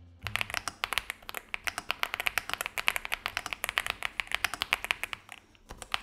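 Meletrix Zoom65 mechanical keyboard with dye-sub PBT keycaps being typed on quickly, a rapid stream of keystrokes with a thocky sound. The typing pauses briefly a little after five seconds, then resumes.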